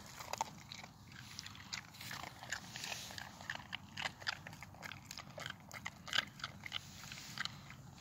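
A Boston terrier crunching and chewing chunks of ice, giving a quick, irregular run of sharp cracks and crunches.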